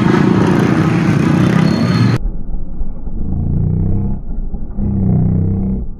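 Busy street noise with motorcycle traffic. About two seconds in, the sound cuts off abruptly and changes to a muffled low rumble with a pitched hum.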